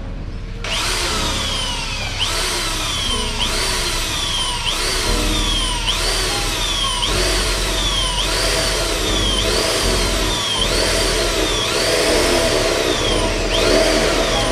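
A power drill's motor spinning up and running down again and again, about every second and a half, in a rising then falling whine.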